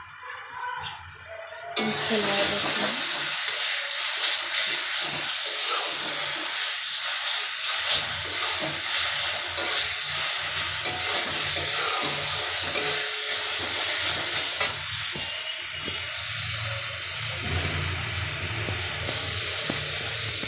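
Spice paste sizzling in hot oil in a steel kadhai while a steel spatula stirs and scrapes it, with small clicks of metal on metal. The sizzle starts suddenly about two seconds in and grows louder later on. This is the masala being fried until it releases its oil.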